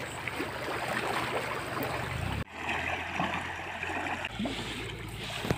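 Fast-flowing, rain-swollen drainage ditch: a steady rush of muddy water. It drops out for an instant about halfway through, then carries on.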